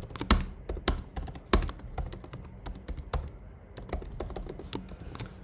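Typing on a computer keyboard: a run of quick, irregularly spaced keystroke clicks.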